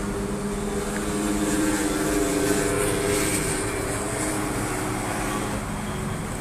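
Steady drone of vehicle traffic: a mix of engine hums that swells about two to three seconds in and then eases off.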